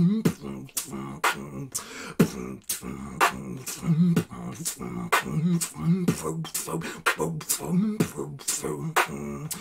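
Freestyle beatboxing: mouth-made percussion, with sharp snare- and hi-hat-like hits about twice a second over a low hummed bass line that moves in pitch.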